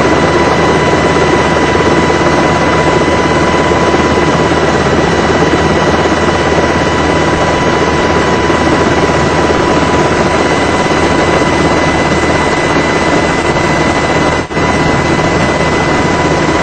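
Helicopter in flight, heard from on board: a steady loud rotor and turbine noise with a constant high whine. The sound dips sharply for a moment about fourteen seconds in.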